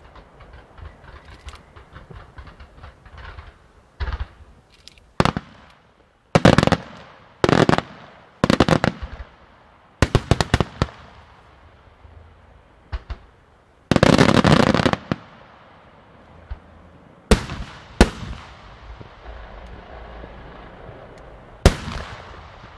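Aerial fireworks shells bursting: faint crackling at first, then a series of loud bangs, some coming in quick clusters. A dense rapid volley comes about two-thirds of the way through, and a last sharp bang near the end.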